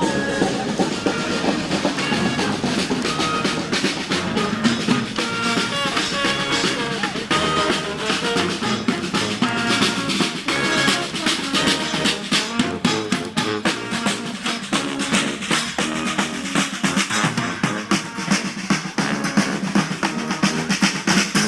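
A parade street band playing: snare and bass drums keep a dense, steady beat, with a melody of held notes over it, clearest in the first half.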